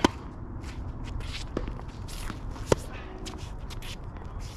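Tennis rally: a racket strikes the ball sharply right at the start and again about two and a half seconds later. Quick footsteps and shoe scuffs on the court run in between.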